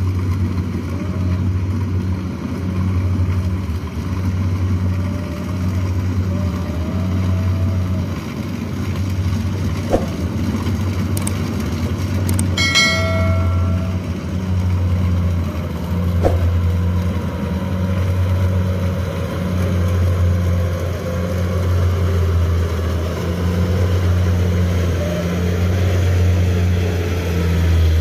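Kubota DC-70 combine harvester's diesel engine running steadily under load while harvesting rice, a deep even drone. A short bell-like notification chime sounds about halfway through.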